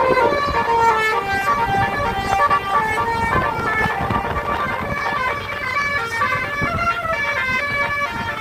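Basuri 'telolet' multi-tone bus air horn playing a quick melody of stepped, changing notes, over a low rumbling noise.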